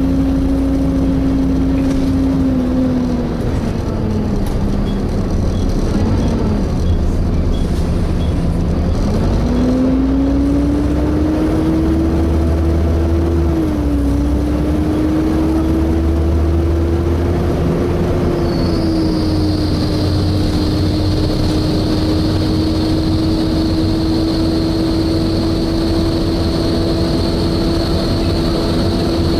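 Volvo B7TL bus's cooling fan whining with a hoover-like drone, heard from inside the bus over the low engine rumble; its pitch drops for a few seconds, climbs back up and then holds steady. About two-thirds of the way through, a thin high-pitched screech joins in and keeps going.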